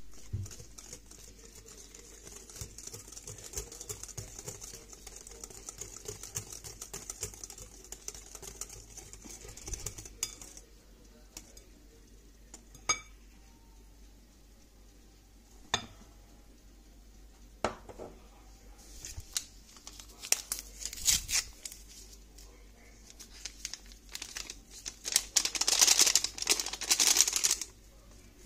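Wire whisk beating a liquid egg, sugar and yogurt cake batter in a glass bowl: a fast run of small clicks and splashes for about ten seconds, then a few single clicks of the whisk against the bowl. Near the end a louder rustling, scraping burst as flour goes into the bowl.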